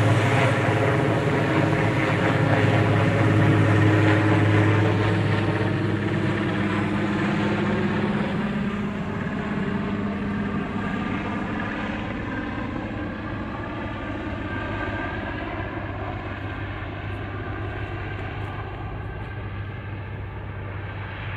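Helicopter's rotor and turbine engines running steadily in flight with an underslung load, fading gradually as it flies away.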